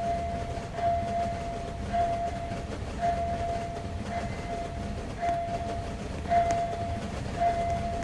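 Railway level-crossing warning signal ringing, a steady tone that pulses about once a second, over a low rumble.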